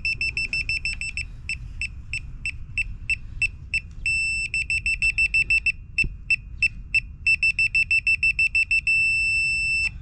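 DeWalt laser level detector beeping as it is slid along a grade stake to find a rotating laser's beam: runs of rapid beeps alternate with slower beeps about three a second, and twice it holds a steady tone, about four seconds in and again near the end, the on-grade signal that it sits level with the beam.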